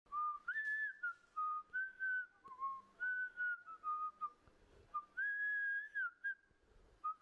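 A whistled tune: one clear note moving up and down in short held steps, with a longer high note about five seconds in.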